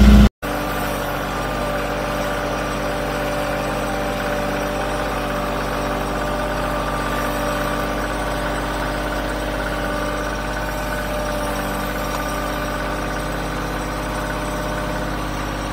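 Bobcat CT2025 compact tractor's diesel engine idling steadily.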